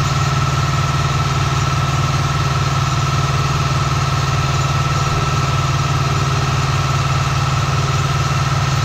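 Deutz-Fahr DX 3.65 tractor's 70 hp diesel engine running steadily under load while driving a Pöttinger NovaDisc 265 disc mower, heard from inside the cab. A steady high whine runs over the deep engine note.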